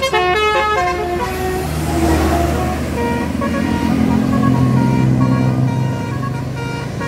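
A bus's multi-tone 'telolet' horn playing a quick run of stepping notes, then giving way to the steady drone of the bus's engine, with fainter horn notes above it.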